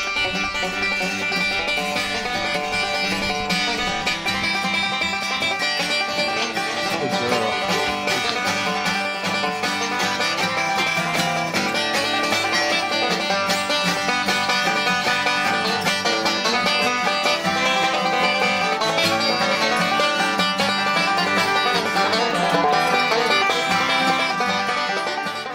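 Background music: a lively instrumental tune of fast-picked banjo and guitar in a bluegrass style.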